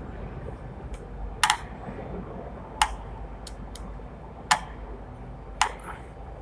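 Screwdriver tightening the terminal screw of a panel indicator lamp to fasten the neutral wire: about seven sharp, irregular clicks of metal on metal.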